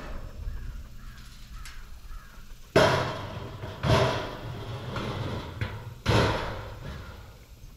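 A metal game feeder's hopper being filled with shelled corn: three loud clattering rushes, each starting suddenly and dying away over about a second.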